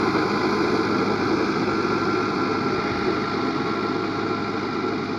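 Fiat 640 tractor's diesel engine running steadily as it drives a rotavator through sand, growing slightly fainter as it moves away.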